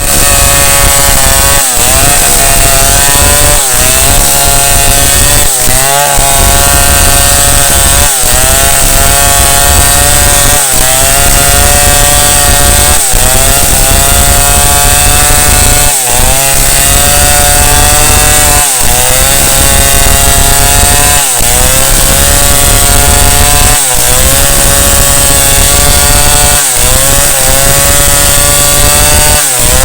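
Chainsaw running at high speed while cutting through a tree. Every two to three seconds its pitch dips briefly and climbs back, as the engine bogs under load in the cut.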